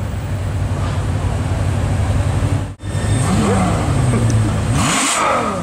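Ferrari F12berlinetta's 6.3-litre V12 running at idle, then blipped twice, about half-way and near the end, the revs rising sharply and falling away each time.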